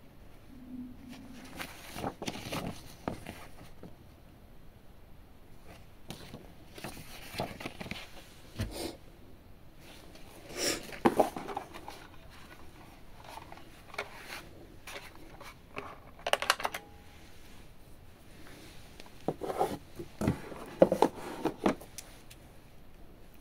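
Handling noise of unboxing: paper leaflets and cardboard packaging rustling and scraping, with a few light knocks as a glass bathroom scale is lifted and laid on the box. The sounds come in scattered bursts.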